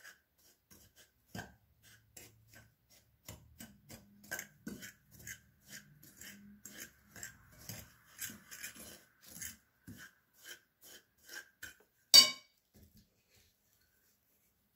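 Mashed cauliflower being mixed by hand in a glass bowl: a long run of short, quick clicks and taps, two or three a second. About twelve seconds in comes one sharp clink, the loudest sound, as a metal spoon strikes the glass bowl.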